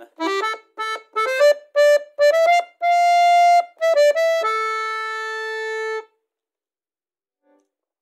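Bayan (Russian button accordion) playing a single-line melody on its right-hand buttons: a run of short notes with one longer note in the middle, ending on a long held note that stops about six seconds in.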